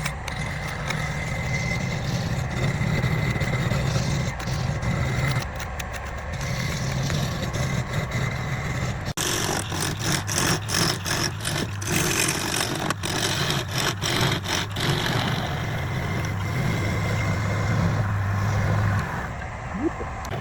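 Woodturning lathe motor running with a steady hum, under the scraping hiss and clicks of a turning tool cutting the spinning wood; the sound changes abruptly about nine seconds in.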